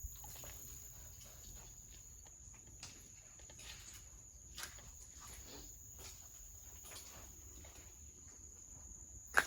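Sparse footsteps and scuffs on debris, over a faint steady high-pitched tone and a low hum, with a sharp click near the end.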